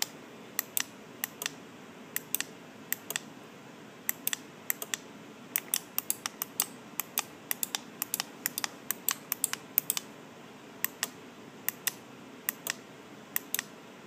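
12 V relays on an RF remote-control receiver board clicking as they toggle in latching mode, along with the remote's button presses. The clicks are short and sharp, at irregular spacing and often in quick pairs, sometimes several a second.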